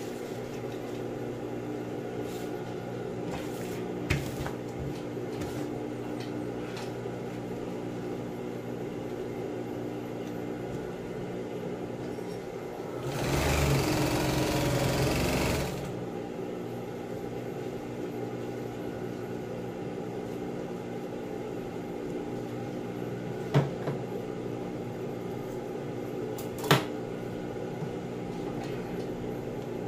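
Industrial sewing machine stitching a short run through vinyl tarpaulin for about two and a half seconds, midway through. A steady hum runs underneath, with a few sharp clicks as the material is handled.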